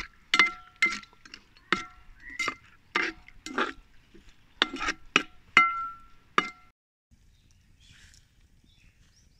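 Perforated metal ladle knocking and scraping against a large metal cooking pot while stirring thick meat gravy, each knock ringing briefly. About a dozen clinks over six seconds, then they stop.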